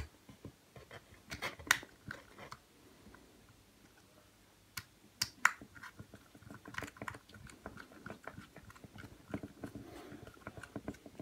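Junction box cover being fitted and screwed on with a screwdriver: scattered small clicks and knocks of the cover and cable being handled, with a denser run of small ticks in the second half as the screw is driven.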